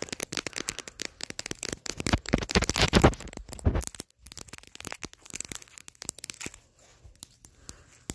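Crackling and scratching of hair and cloth rubbing right against a phone's microphone, dense and loudest a few seconds in, then thinning to scattered clicks.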